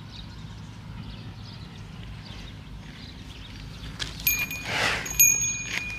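A cow blows one short breath close to the microphone about four and a half seconds in, the loudest moment, while a high, steady chime-like ringing sounds for about a second and a half. A low rumble of wind on the microphone runs underneath.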